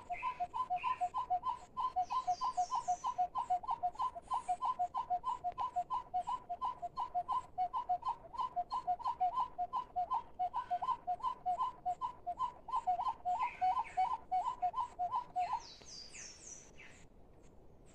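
A mouth-blown bird call (pio) sounded by a hunter: a clear two-note whistle, a higher note then a lower one, repeated evenly about three times a second for some fifteen seconds, then stopping abruptly. Faint high chirps from other birds come through behind it.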